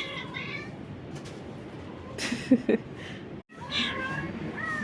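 Cat meowing: one call right at the start and more calls near the end, the last a high rising-then-falling mew. A brief noisy scuffing sound comes about two seconds in.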